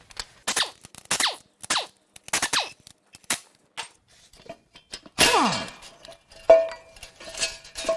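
Short bursts from a pneumatic wrench backing out the exhaust manifold bolts on a Ford 4.0L SOHC V6, coming about every half second. A little past five seconds comes a longer run whose pitch falls, then a sharp metal clank that rings on for about a second.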